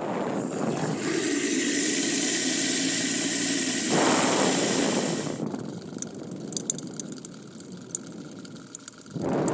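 A steady rushing noise for about five seconds, then a quieter trickle with scattered drips: foley water dripping from a gutter downspout onto snow.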